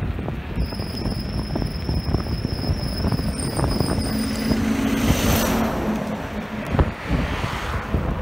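Wind buffeting the microphone of a moving scooter, with a heavy truck passing close by in the other direction about five seconds in: its engine hum and tyre rush swell and then fade. A thin high whine sounds through the first half.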